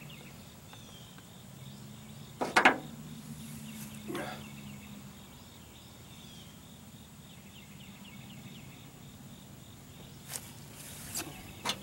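A few sharp knocks from a plastic jug and plastic cups being handled, the loudest about two and a half seconds in and three more near the end, over faint steady insect chirping.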